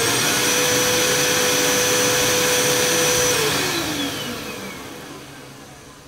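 Upright bagless vacuum cleaner's motor running with a steady whine. About three seconds in it is switched off and winds down, the whine falling in pitch and fading away.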